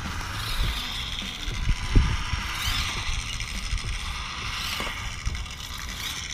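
Whine of a 1:32 Orlandoo Hunter micro crawler's small electric motor and gearbox as it crawls slowly over rocks and gravel, over an uneven low rumble with a bump about two seconds in.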